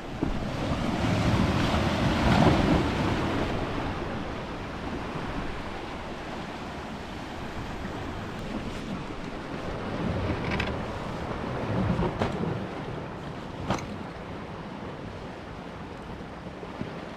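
Ocean waves washing against a rocky shoreline, surging loudest in the first few seconds and again around ten to twelve seconds in, with wind on the microphone and a few short knocks in the second half.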